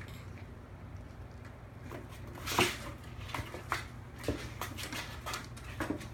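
Kittens playing in and around cardboard boxes: a sharp knock about two and a half seconds in, then a run of light taps and scratches from paws on cardboard and the wood floor. A steady low hum runs underneath.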